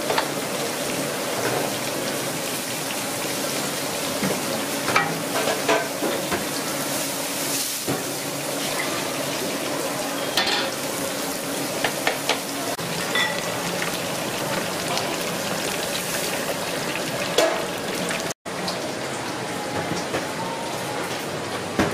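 Water boiling hard in a commercial noodle boiler holding noodles in wire-handled baskets: a steady bubbling hiss with a few light clicks and knocks of metal. Near the end, after a brief break, a wok is tipped over bowls to pour out the soup.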